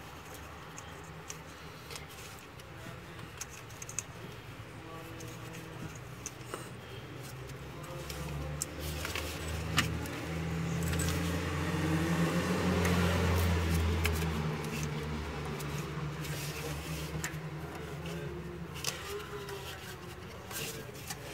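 Small metallic clinks and knocks of hands fitting LPG system parts and caps back on. Partway through, a passing vehicle's low engine hum swells, peaks and fades away.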